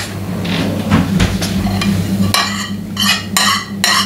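A metal spoon scraping grated zucchini off a ceramic plate into a plastic mixing bowl, a few scattered clicks at first, then short rhythmic scrapes about three a second starting a little past halfway. A steady low hum runs underneath.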